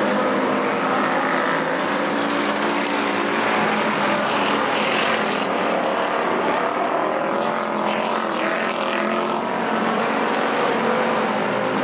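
Pure stock dirt-track race cars running at speed in a pack: several engines droning together, loud and unbroken.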